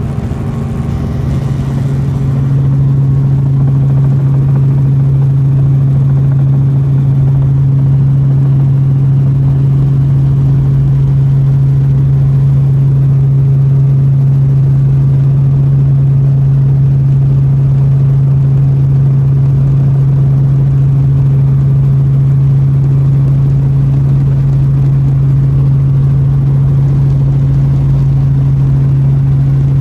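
Light helicopter's engine and rotors droning steadily, heard inside the cabin. The drone grows a little louder over the first couple of seconds, then holds even.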